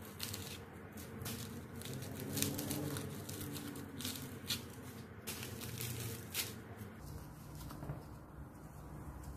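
Aluminium foil crinkling and rustling as small foil caps are pinched and pulled off the bone ends of roasted chicken drumsticks: a run of light, irregular crinkles that stops about two-thirds of the way through.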